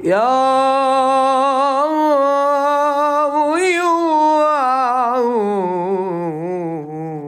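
A single voice singing one loud, drawn-out 'yaaa' with a wavering vibrato. It swoops up briefly about three and a half seconds in, then slides slowly down in pitch until it breaks off near the end.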